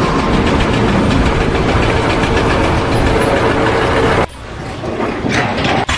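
A loud engine running steadily, with a low steady hum under a dense rumble. It cuts off abruptly a little over four seconds in, leaving a quieter, different background.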